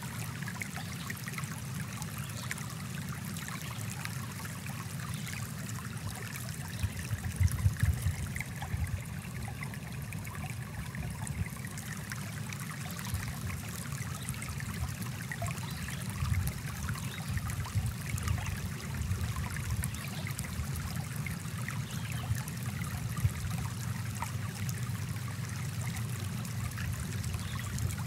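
Running water of a small stream, a steady rush with a few louder low surges about seven to eight seconds in.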